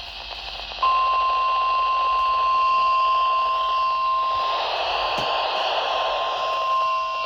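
NOAA Weather Radio warning alarm tone (1050 Hz), a steady single beep that comes on about a second in and holds, received over a weather radio with static hiss behind it. Sent as part of the weekly test of the warning alarm.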